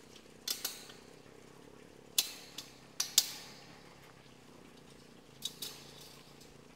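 Pliers clicking and snapping on wire as it is fastened to a steel T-post, attaching welded wire fencing. A handful of sharp metallic clicks, mostly in pairs, the loudest about two to three seconds in.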